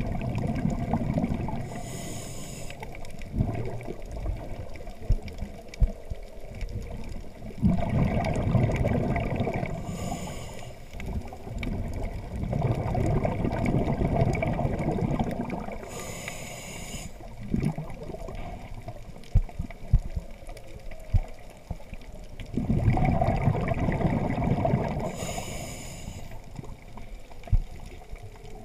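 Scuba diver breathing through a regulator underwater. A short hiss alternates with a longer bubbling rumble of exhaled air, four breaths, one about every seven to nine seconds, with a few small clicks in between.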